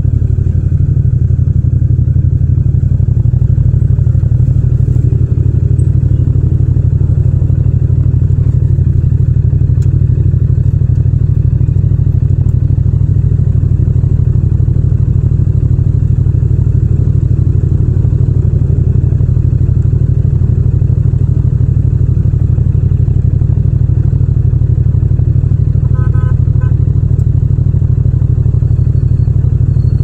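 Yamaha MT-07's 689 cc parallel-twin engine idling steadily at a standstill. Near the end there are a few short beeps.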